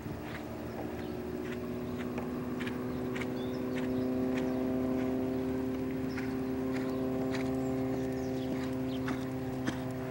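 Lusitano stallion's hooves striking the arena footing in an irregular beat, roughly twice a second, over a steady machine-like hum that grows louder about four seconds in.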